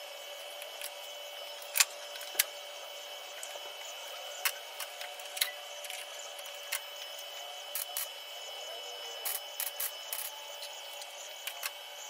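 Hand metalwork on a car body panel: irregular sharp clicks and taps, several in a quick cluster near the end, over a steady high electrical whine.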